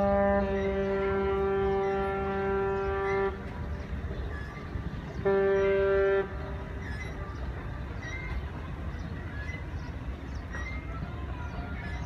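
Ship's horn blasts: a long blast that ends about three seconds in, sounding as two notes at first until the lower one cuts out after half a second. A second, one-second blast follows about five seconds in, over a low steady rumble.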